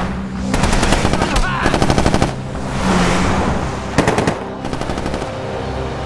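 Automatic gunfire in rapid bursts: a long burst starting about half a second in and lasting nearly two seconds, then a shorter burst about four seconds in, over the steady running of a vehicle engine.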